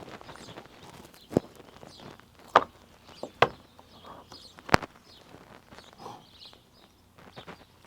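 Knife cutting a rack of baby back ribs apart on a cutting board, with four sharp knocks of the blade against the board. Birds chirp faintly in the background.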